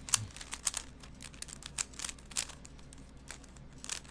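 Plastic Rubik's cube being turned by hand during a solve, its layers clicking and clacking in quick irregular snaps, a few a second.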